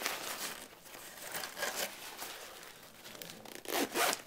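Rustling and crinkling of a folded black fabric camera bag being unfolded and handled, in irregular bursts with a louder rustle near the end.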